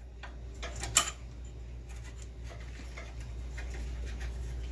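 Light clicks and taps of a wrench and metal bicycle brake parts being handled, with one sharper click about a second in, over a steady low hum.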